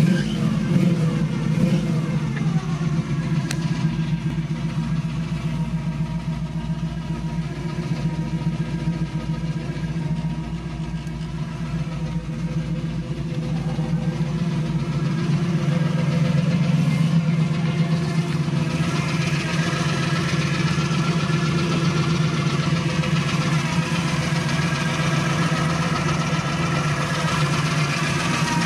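1967 Camaro SS's 350 small-block V8 idling steadily, heard first from the driver's seat; the sound gets louder and brighter about two-thirds of the way in, as it is heard from outside by the open engine bay.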